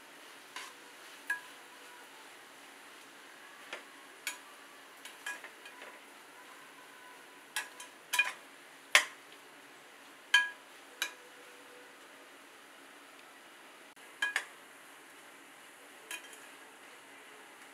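A spatula knocking and clinking against a pan while an onion and tomato masala is stirred, over a faint steady sizzle of frying. The knocks come irregularly, about a dozen of them, with the loudest around the middle.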